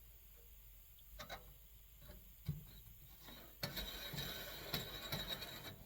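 Clicks, taps and light rattling of small metal stove parts being handled and worked by hand: a few scattered clicks at first, then busier handling from about three and a half seconds in.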